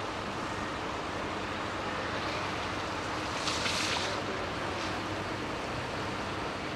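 Steady wind rushing over the microphone, with a brief louder gust about halfway through.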